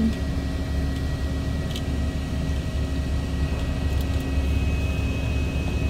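Steady low rumble and hum of an idling car, heard from inside the cabin.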